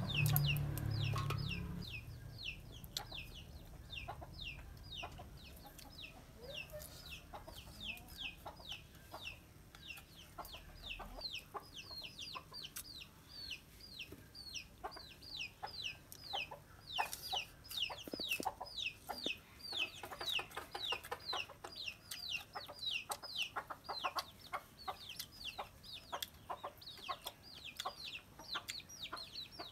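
Chicks peeping: a steady run of high, short falling peeps, two to three a second, with scattered light clicks.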